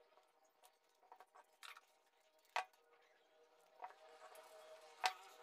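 Scissors cutting stiff buckram, a few faint separate snips and clicks over quiet room tone, the loudest about halfway through.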